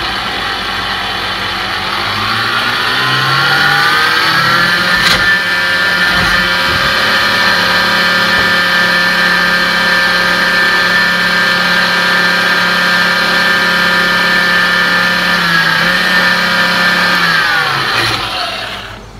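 An electric kitchen appliance's motor, loud, spins up over about three seconds, runs at a steady pitch, then winds down and stops near the end.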